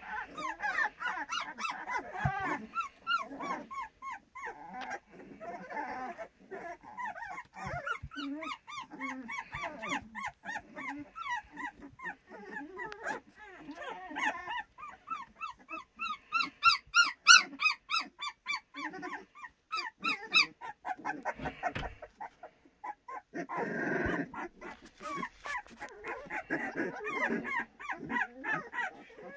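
A litter of young puppies play-fighting, with many overlapping short, high-pitched yips and whines. The yipping is loudest in a burst just past halfway through.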